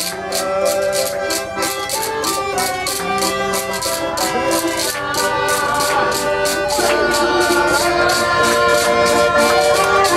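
Live Russian folk music on a button accordion, with a steady quick beat of hands clapping along.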